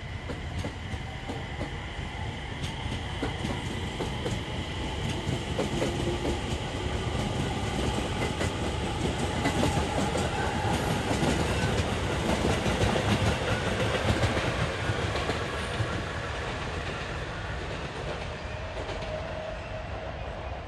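Electric train running past on the rails, wheels clicking over rail joints with a faint motor whine; it grows louder toward the middle and eases off near the end.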